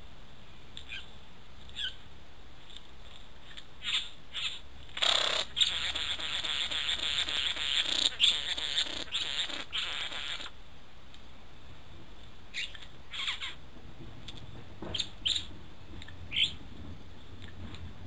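Young green male satin bowerbird's harsh, crackling buzz, lasting about five seconds from about five seconds in and stopping abruptly. Short chirps and clicks come a few times before and after it.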